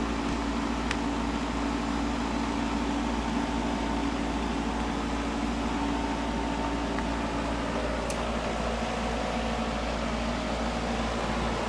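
Steady hum of a car's interior with the engine and ventilation fan running, and a couple of faint ticks.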